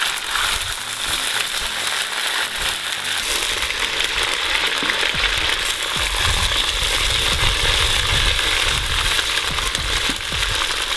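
Hot sunflower oil and chicken fat sizzling steadily in a cast-iron kazan over a wood fire, after the chicken drumsticks have been fried.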